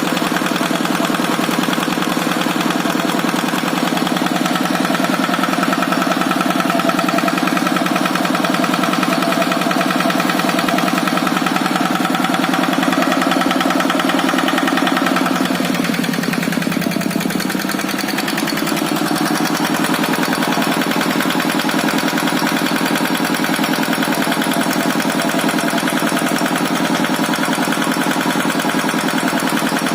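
Kubota RD65DI single-cylinder direct-injection diesel engine running steadily, its pitch dipping briefly about sixteen seconds in before it picks back up.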